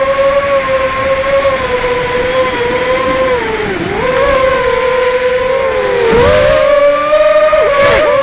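Brushless motors and 5040 props of a 250-size FPV racing quad (Sunnysky 2204 2300kv motors) whining steadily, heard through the onboard camera. The pitch dips briefly near four seconds and splits into several shifting tones near the end as the throttle changes, with brief rushes of noise around six and eight seconds in.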